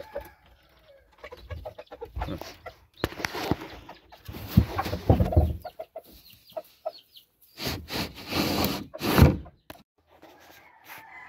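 Chickens clucking, with several louder bouts of rustling noise in the middle and near the end.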